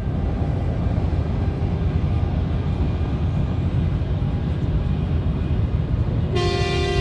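Steady highway traffic rumble, then about six seconds in a Volvo VNL 760 semi truck sounds one long blast on its air horn.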